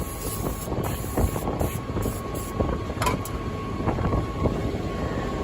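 Vehicle engine running steadily, with wind on the microphone, a faint steady high tone and scattered small clicks.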